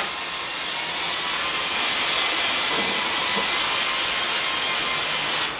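A steady rushing hiss of background noise, with a faint low hum under it.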